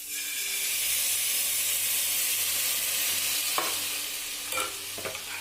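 Grated ginger in hot ghee sizzling loudly as a splash of water hits the pan, the sizzle starting suddenly and easing off after about three seconds. A spoon scrapes the pan a few times near the end.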